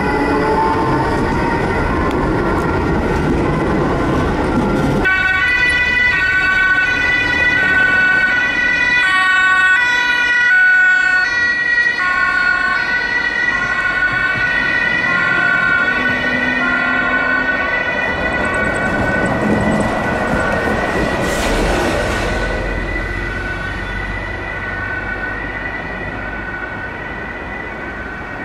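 Two-tone sirens of several emergency vehicles sounding at once, their high and low notes alternating and overlapping, over passing street traffic. A short hiss comes about three-quarters of the way through, and the sirens fade a little near the end.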